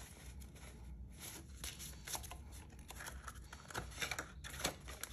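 Paper dollar bills rustling and flicking as they are handled and counted by hand, with light rustles of a paper envelope in a ring binder: a run of faint, irregular crisp rustles.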